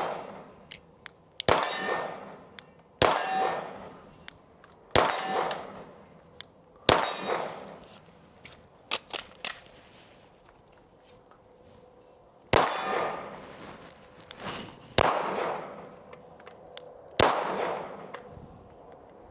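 A string of slow pistol shots at steel targets, about seven in all, spaced a couple of seconds apart with a longer pause in the middle. Each sharp crack is followed by a ringing that fades over a second or two.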